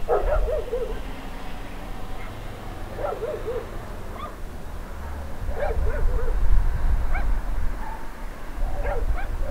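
Short runs of wavering animal calls, a few quick notes each, recurring every one to three seconds over a steady low rumble.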